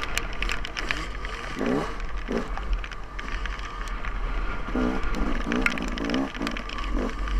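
Dirt bike engine revving in short bursts, its pitch climbing with each blip of the throttle, under a steady low rumble of wind on a helmet-mounted microphone, with scattered sharp clicks.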